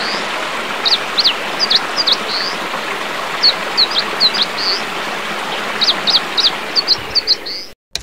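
Mountain stream running over rocks, a steady rush of water, with a small bird singing short, high, hooked notes in three quick phrases over it. The sound cuts off abruptly just before the end.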